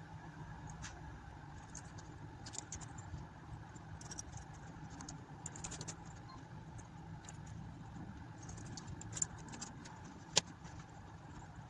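Small screws and metal RC wheel-rim parts clinking and ticking lightly as they are handled, with one sharper click about ten seconds in, over a steady low hum.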